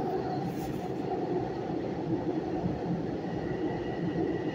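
Long Island Rail Road train running at speed through a tunnel, heard from inside the passenger car: a steady rumble, with a faint high whine coming in about three seconds in.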